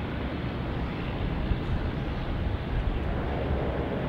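Airbus A380 on final approach, its four jet engines a steady low rumble that grows slowly louder as it nears the runway.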